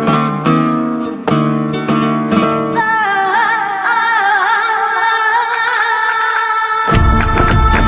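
Music: strummed guitar chords. About three seconds in, a singing voice or lead line with a wavering, ornamented melody takes over and the low end drops out. Near the end, a heavy bass and beat come in.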